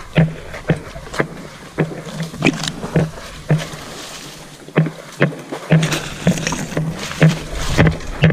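A run of irregular sharp knocks and clatters, roughly one to two a second, the kind made while scrambling over rocks and boulders.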